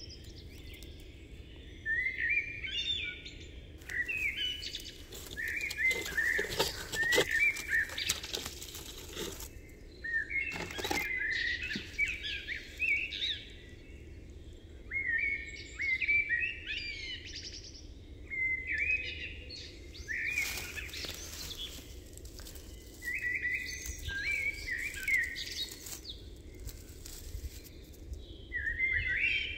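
A songbird singing short, repeated phrases every couple of seconds, with a few brief crackles or knocks in between.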